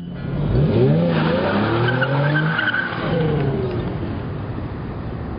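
A car driven hard, its engine revving with the pitch rising and falling, over a steady rush of noise, with tyres squealing about a second in.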